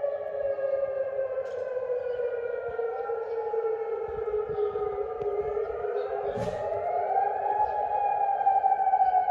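Several civil defence warning sirens wailing at once at different pitches, slowly falling and then rising again about six seconds in. They are sounding to announce a curfew.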